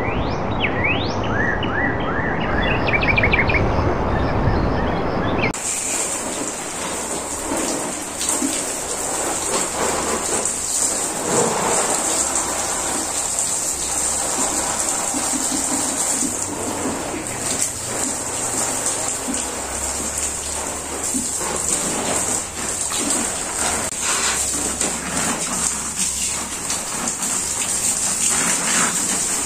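Water spraying from a garden hose onto leafy plants: a steady hiss and patter of spray on leaves, beginning about five seconds in after a denser, different sound with a few short high chirps.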